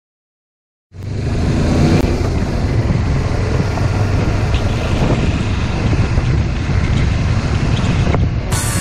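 Motorcycle riding along a gravel road, heard from an on-bike action camera: a steady engine hum under a dense rush of wind and road noise. It starts abruptly about a second in and cuts off near the end.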